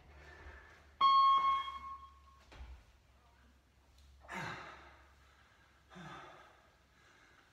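A workout interval timer gives a single bell tone about a second in, one clear pitched beep that rings out and fades over about a second, marking the start of a work interval. Then come two loud, breathy exhalations with a falling pitch, a couple of seconds apart, from a man doing deep squats, with quieter heavy breathing between.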